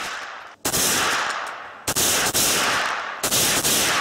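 Three gunshots about a second and a half apart, each trailing off in a long echo, fired at homemade copper oxide and aluminum powder exploding targets that fail to go off.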